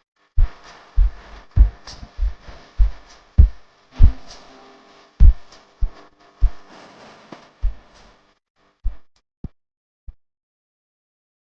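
Instrumental electronic beat with deep, bass-heavy kick hits under higher percussion and synth. It stops about eight seconds in, and a few lone hits follow.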